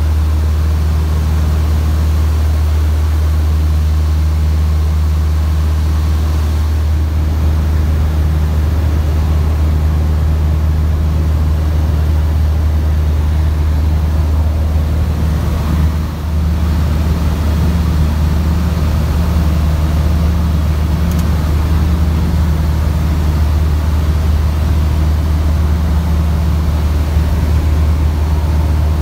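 Steady drone of a small propeller plane's engine and propeller, heard from inside the cabin. It dips briefly about halfway through.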